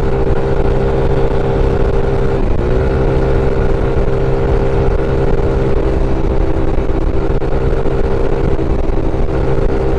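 Motor scooter engine droning at a steady cruising speed, with wind and road noise over it. About two and a half seconds in the pitch dips briefly, then settles back to a steady drone.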